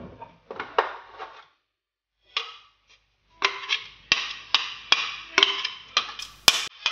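Hand tapping the base of an upside-down plastic blender beaker to knock the last of the oat pancake batter into the pan. There are a few knocks early on, then a steady run of sharp knocks, about three a second, through the second half.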